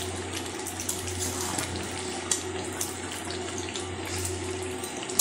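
Thick mutton masala sizzling steadily in a metal kadai over a full gas flame, with a few faint scrapes and taps of a spatula stirring it.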